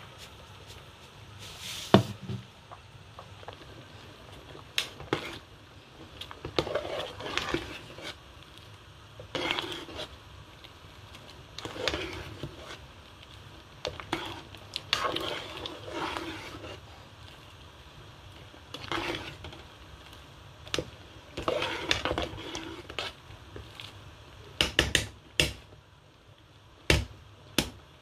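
Cooking sounds at a pot of rice and beans on the boil: a metal spoon clinking and scraping in the pot in repeated short bursts, with a sharp clink about two seconds in.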